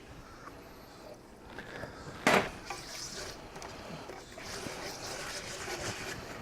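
Flour-and-oil pan gravy cooking in a skillet while it is stirred: a short, loud sound a little over two seconds in, then an uneven, liquid sizzle and scrape.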